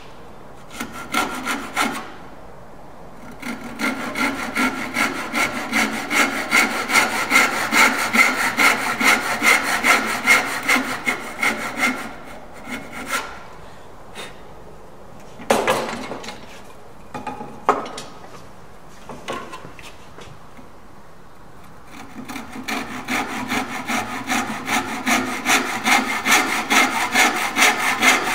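Hand saw cutting across a softwood rail at the shoulder line of a bridle joint, in quick, even back-and-forth strokes. The sawing stops about halfway through, with a few separate short sounds during the pause, then starts again near the end.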